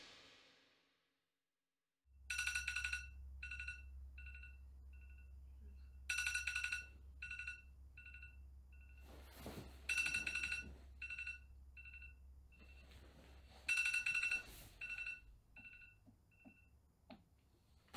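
Electronic phone ringtone starting about two seconds in: four bright rings about four seconds apart, each followed by a run of shorter, fading beeps, over a low steady hum.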